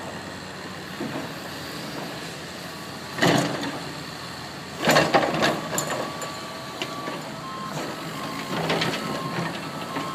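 Heavy diesel machinery running on a rock-fill job, with two loud crashes of rock being dropped, one about three seconds in and a longer, clattering one about five seconds in. A reversing beeper sounds in short pulses in the second half.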